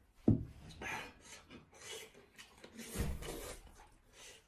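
Slurping and eating of hot and sour sweet-potato noodles: several separate noisy slurps, with a short low thump about a third of a second in.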